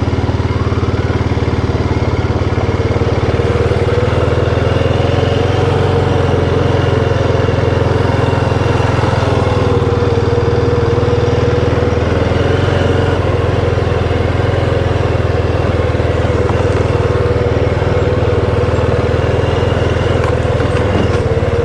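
ATV engine running steadily at low trail speed, its pitch rising and falling a little, while pulling a small trailer loaded with gravel.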